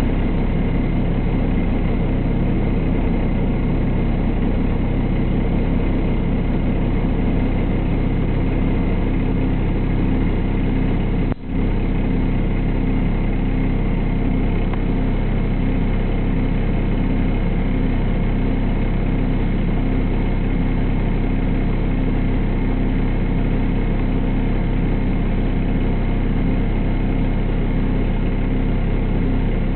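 Diesel engine of a 2004 Solaris Urbino 12 city bus heard from inside the passenger cabin, running steadily with a low hum and a regular pulsing beat in it, fairly loud for the cabin. The sound drops out for a split second about eleven seconds in.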